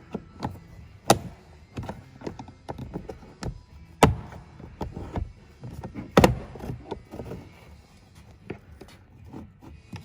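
Plastic trim tool prying a 2021 Honda Civic's interior door panel off, with a string of sharp clicks and knocks as the panel's retaining clips pop loose. Three louder pops stand out: about a second in, about four seconds in and about six seconds in.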